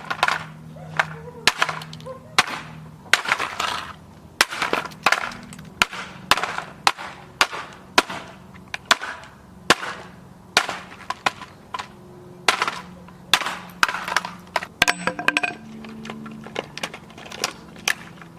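Repeated sharp blows smashing a plastic LeapFrog toy race car, with cracking and breaking plastic, at an irregular pace of about two strikes a second.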